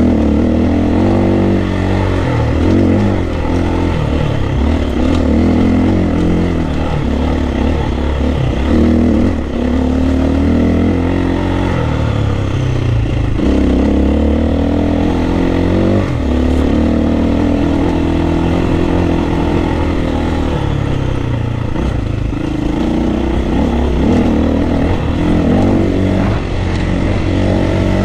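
Dirt bike engine running under way on a rough trail, its pitch rising and falling over and over as the throttle is worked on and off.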